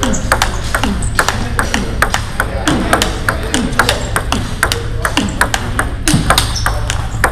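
Table tennis rally in a loop-against-block drill: the plastic ball clicks sharply off the paddles and bounces on the table, several hits a second. Balls from other tables click in the background.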